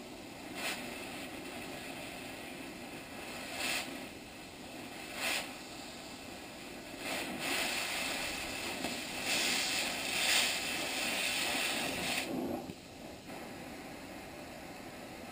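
Cutting torch hissing steadily against the steel truck frame, with louder blasts of hiss when the cutting oxygen is fired: three short ones in the first half, then longer ones a little after seven and nine seconds in, stopping about twelve seconds in. The torch is working on the rear spring hanger fasteners, heating them so they can be driven out with an air hammer.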